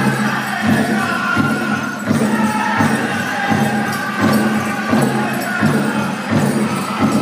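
Powwow drum group singing a Chicken Dance song in high voices over a steady beat on the big drum, with the dancers' leg bells jingling.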